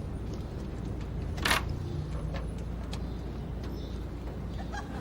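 A car engine, Mr Bean's classic Mini, running with a steady low rumble, with one short sharp noise about a second and a half in.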